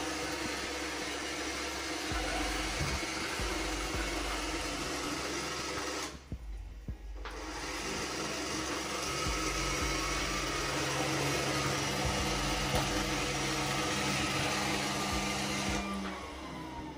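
iRobot robot vacuum running steadily across the floor with a whirring suction and brush noise. The noise drops out for about a second some six seconds in, then resumes.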